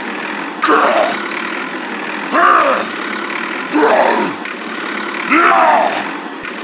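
A motor running steadily, revving up and dropping back in short rises and falls of pitch four times, about one and a half seconds apart.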